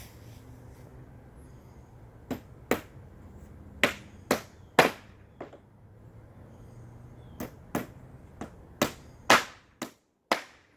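Hammer driving nails into a wooden truss: about a dozen sharp strikes in uneven groups of two to four, under a faint low hum.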